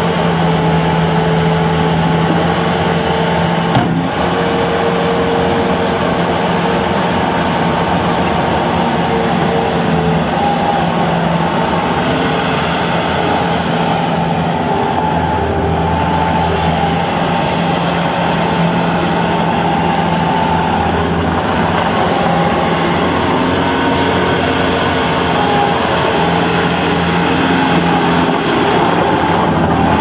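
Bobcat S185 skid steer loader's diesel engine running steadily while the loader works its lift arms and drives.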